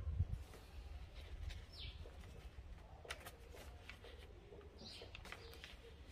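Pages of a thick handmade paper journal being turned and handled: faint, scattered rustles and light taps of paper.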